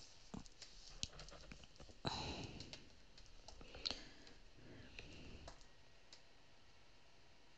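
Faint handling noises: scattered light clicks, and one brief rustle about two seconds in as hands move a cotton cloth over a craft mat.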